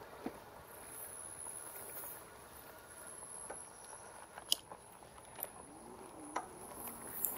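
Faint, steady, high-pitched buzz of insects such as cicadas or crickets, over a soft rolling hiss, with a few sharp clicks scattered through.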